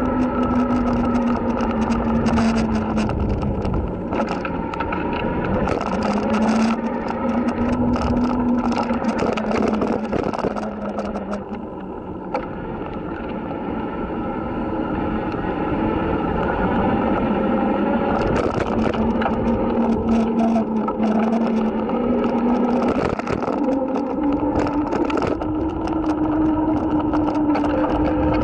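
Electric bike's motor whining steadily as it rides, its pitch dipping and returning with speed and stepping higher near the end, over wind rush on the microphone. Many quick rattles and clicks from the loosely mounted handlebar camera run through it.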